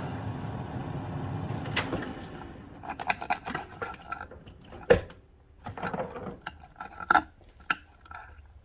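A fork clinking and scraping on a ceramic plate as food is cut and eaten, with scattered sharp taps, the loudest about five seconds in. A steady low hum fades out over the first two or three seconds.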